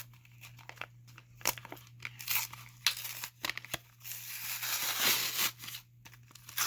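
Plastic blister packaging crinkling and crackling as it is handled and pulled apart by hand, with a longer stretch of tearing, rustling noise about four to five and a half seconds in.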